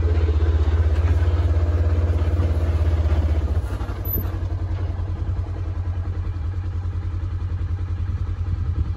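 A vehicle engine idling, a loud low throb that drops somewhat in level about three and a half seconds in.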